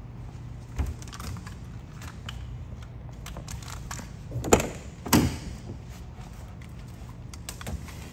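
A car door being unlatched and swung open on a 1983 BMW E23 733i: a sharp latch clack about four and a half seconds in and a second clunk half a second later, with a few lighter clicks and knocks around them.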